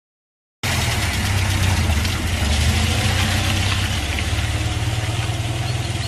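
A steady low engine hum with a hiss above it, starting abruptly under a second in and running evenly.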